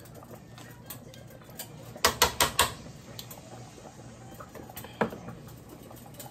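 Kitchen tongs clicking sharply four times in quick succession, then once more about five seconds in.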